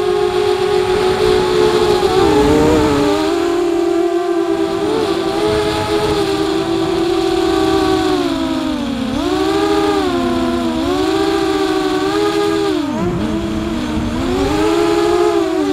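Electric motors and propellers of an FPV model aircraft whining steadily, heard from the onboard camera. The pitch dips and recovers a few times in the second half as the throttle is eased and opened again.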